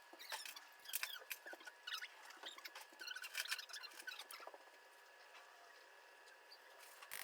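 A spoon scraping and tapping against a mixing bowl as dry ingredients are spooned into cake batter and stirred; a run of small scrapes and clicks that thins out after about five seconds.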